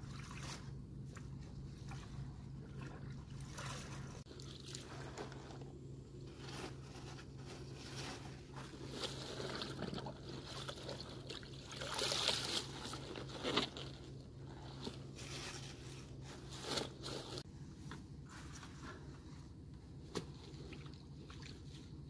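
Napa cabbages being handled in a plastic tub of water: wet leaves rustling and squeaking, water sloshing and dripping, with a louder rustle about twelve seconds in. A faint steady low hum underneath.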